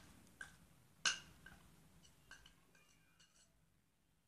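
Several faint, sharp clinks of a metal spoon against glass bowls as powdered sugar is scraped from a small glass bowl into a larger one, the loudest about a second in, the rest fading away.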